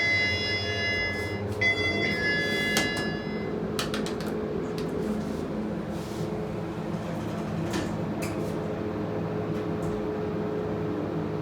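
Elevator chime sounding two electronic tones, each about a second and a half long. Then a steady hum with a few clicks as the elevator doors slide open.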